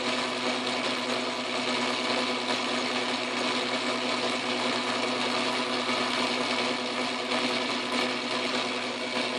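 Atlas metal lathe running steadily under power feed, its motor and gearing giving an even whirring hum, while the cutting tool takes a light skim cut on the spinning metal shaft.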